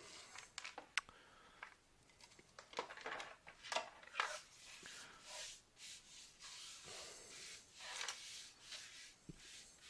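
Faint, irregular scraping strokes of a hand saw rubbing against the plastic speaker casing, with a single click about a second in. The blade is making little headway.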